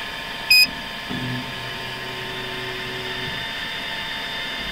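Afinia H440 3D printer during its automatic platform calibration: one short, high electronic beep, then the motors hum for about two seconds as the platform and nozzle move to the next probe point.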